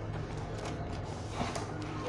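Plastic protective wrap rustling and crinkling as a wrapped speaker is handled, with a few light knocks, about a second in and again near the end. A steady low hum runs underneath.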